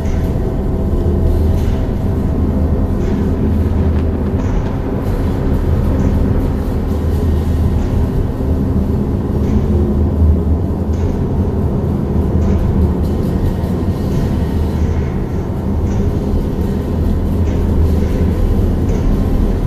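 Tibetan Bon ritual music: a deep, steady drone of very low sustained tones, with faint regular strikes about every second and a half.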